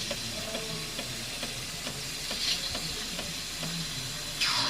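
Jura F90 coffee machine's milk frother running: a steady hiss of steam drawing milk through the nozzle, with faint clicks about twice a second and a brief louder burst near the end.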